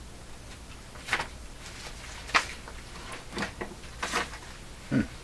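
A handful of light, scattered clicks and taps from handling tools and parts at a workbench, over a faint steady low hum.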